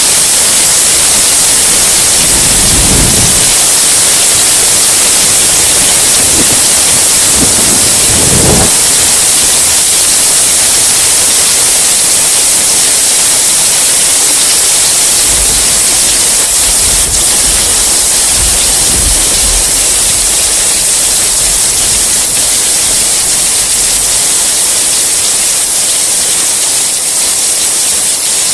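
Heavy rain falling steadily as a dense, loud hiss, with low rolling thunder rumbling under it a few times.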